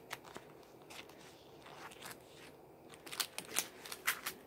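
Handling of a precision screwdriver set and its leather case: scattered light clicks and rustles, busier and louder near the end.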